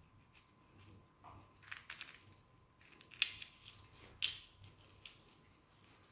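Light clicks and taps of small engine parts being handled as the timing chain guide is fitted to a Mazda 2.2 Skyactiv-D diesel engine, with two sharper clicks about three and four seconds in.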